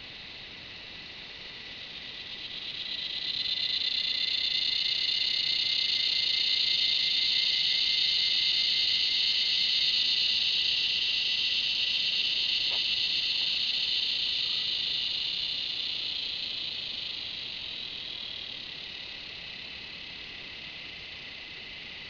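Cicada song: a steady high buzzing that swells up a couple of seconds in, holds loud, then fades away over several seconds, over a fainter continuous insect buzz.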